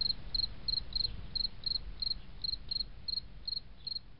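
Cricket chirping steadily, short chirps about three times a second, over a low rumble.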